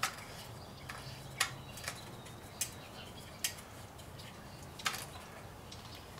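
Scattered sharp clicks and knocks of hard plastic and metal parts as the RC stand's chassis clamp is fitted and cranked tight under a 1/5-scale buggy. There are about five clicks, irregularly spaced, the loudest about a second and a half in and near five seconds.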